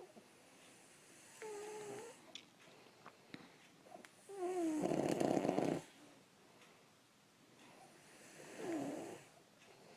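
A man snoring: three snores about three to four seconds apart, each with a tone that dips and rises in pitch. The middle snore is the longest and loudest, with a heavy rasp.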